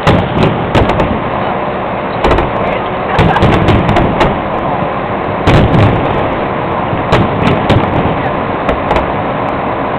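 Fireworks finale: a rapid, irregular barrage of sharp bangs, roughly two a second, over a continuous din.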